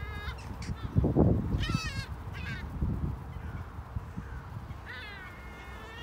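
Gulls calling in a flock: short wavering cries about a second and a half in, and a longer drawn-out call about five seconds in. Two bursts of low rumbling noise, about a second in and around three seconds in, are the loudest sounds.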